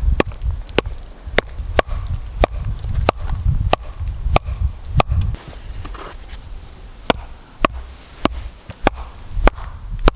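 Axe striking wood in a steady series of sharp blows, roughly one every 0.6 seconds, with a short pause about two-thirds of the way through.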